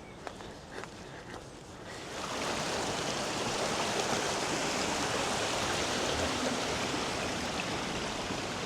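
Rushing water of a stream, a steady even rush that swells up about two seconds in and then holds, with a few faint footstep-like clicks before it.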